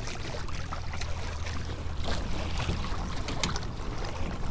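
Water trickling and lapping along the hull of an Old Town Big Water 132 ePDL pedal kayak as it cruises under pedal power, with a steady low hum underneath.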